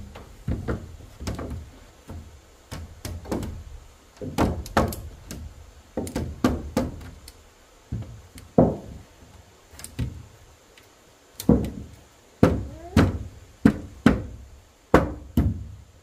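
Hammer blows on wood, irregular at about one or two a second with short pauses, each ringing briefly.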